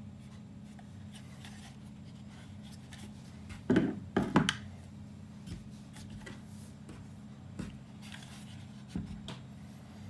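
Handling noises from disassembling a small electronics unit: light scraping and rubbing, with two loud clatters of parts a little under four seconds in and a few small clicks later, over a steady low hum.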